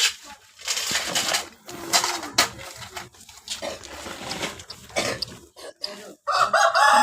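A rooster crowing once near the end, a single drawn-out call. Scattered knocks and rustling come before it.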